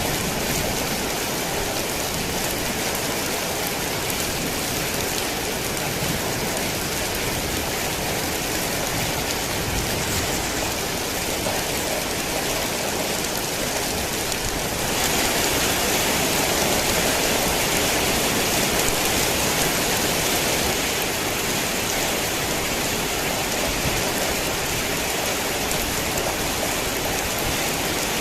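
Heavy rain falling steadily, a dense even hiss that grows a little louder about halfway through.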